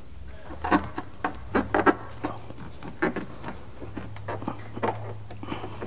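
Foil-backed sound-deadening mat crinkling and crackling in short, irregular snaps as strips of it are folded back and pressed onto a car door's inner panel by hand.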